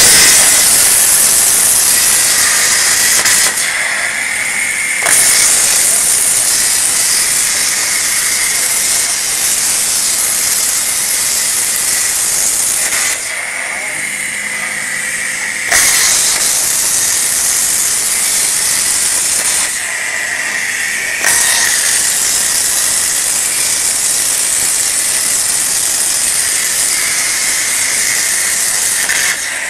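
CNC plasma cutting torch cutting steel sheet: a loud, steady hiss of the plasma arc and air jet that cuts in abruptly. Three times it drops to a quieter hiss with a thin high whine between cuts before the full hiss returns.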